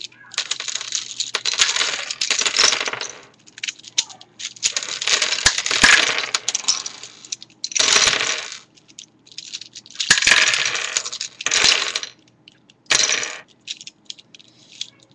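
Plastic pieces of a V-Cube 5 puzzle clicking and clattering as its layers are turned and it comes apart. The clatter comes in five or six spells of a second or two, with short gaps between.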